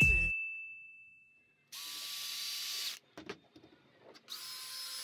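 A chime sound effect rings and fades over the first second or so. Then a cordless drill's motor is triggered twice, each time running for just over a second with a steady high whine, with a few light clicks between the runs.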